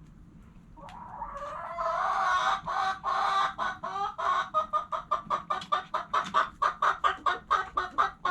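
Hen calling: a drawn-out call swells in over the first few seconds, then breaks into a long, rapid run of clucks, about five a second.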